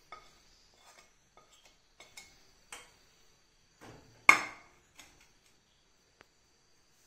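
A steel spoon clinking and scraping against a stainless steel bowl as spice powder is knocked off into it: a run of light clinks, then one much louder ringing clink about four seconds in, and a small click near the end.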